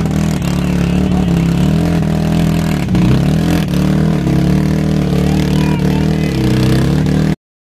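CFMOTO CFORCE 850 ATV engine revving under heavy load in deep mud, its pitch rising and falling several times; it cuts off suddenly near the end.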